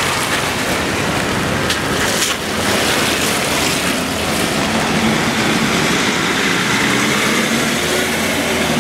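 Steady street traffic on a wet road, with a constant low engine hum and a loud even hiss of tyres and rain.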